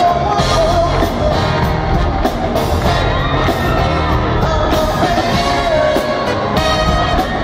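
Live pop-rock band playing loudly with a singer's voice over the drums and band, recorded on a phone at a concert.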